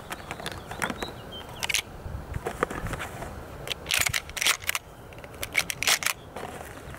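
Sjögren 12-gauge inertia shotgun's action being worked by hand: a string of sharp metallic clicks and clacks as the open bolt is closed and a shell is pushed in.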